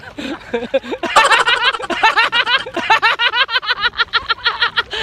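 A man laughing hard: after a few short vocal sounds, a long unbroken run of quick "ha-ha" bursts starts about a second in, about four a second.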